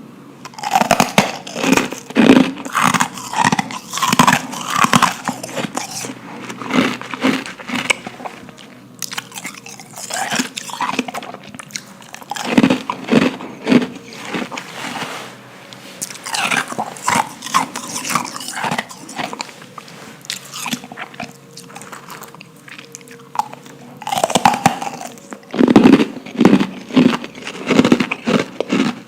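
Close-up bites and crunching of powdery ice, in bursts of sharp crunches with softer chewing between them.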